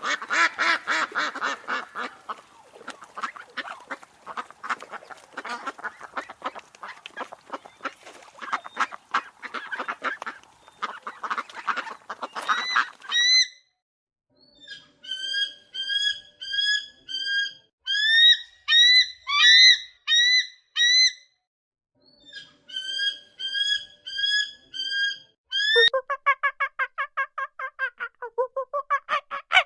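Geese honking: a dense flock clamour of many overlapping calls for the first half, then runs of clear, evenly repeated single honks. Near the end a faster series of lower calls from a different bird begins.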